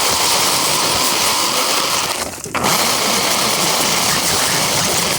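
Radio-controlled car driving, heard from a camera mounted on it: a loud, steady rushing noise of motor, wheels and air, with a brief drop about two and a half seconds in.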